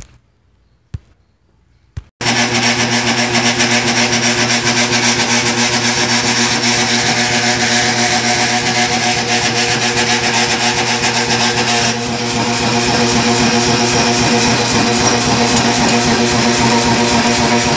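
A few light clicks, then a Say-Mak power hammer starts running about two seconds in: its electric motor drives the flywheel through a cogged timing belt, making a loud, steady mechanical drone with a fast pulse. About twelve seconds in the sound shifts and gets slightly quieter, then runs on steadily.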